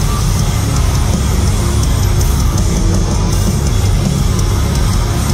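Metalcore band playing live through a concert PA: heavy distorted guitars, bass and drums, loud and continuous, recorded from within the crowd.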